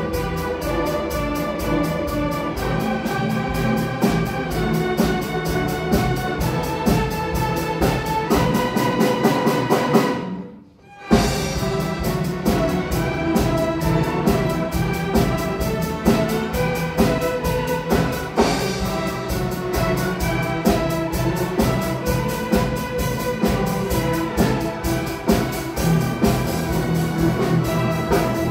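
Student orchestra playing a classical piece live, a large string section with winds behind. The music drops out for about a second near the middle, then comes back suddenly.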